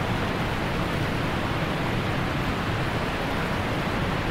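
Steady rushing background noise with no pitch or rhythm.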